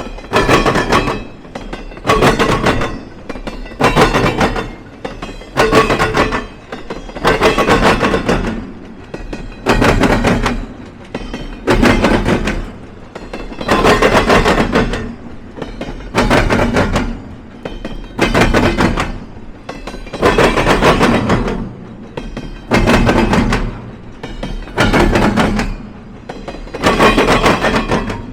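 Train cars rolling over a railroad diamond crossing: the wheels bang across the gaps in the crossing in a cluster of loud clanks as each car's trucks pass, about every two seconds, over a steady low rumble.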